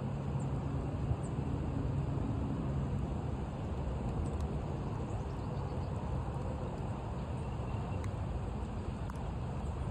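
Steady low rumble of a vehicle engine idling, with a faint steady hum.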